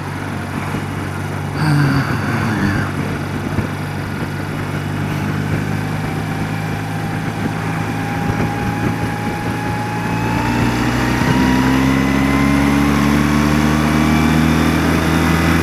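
A 30-year-old BMW motorcycle's engine running at road speed, with wind noise over it and a short louder noise about two seconds in. About ten seconds in the engine grows louder and its pitch climbs steadily as the bike accelerates past a van.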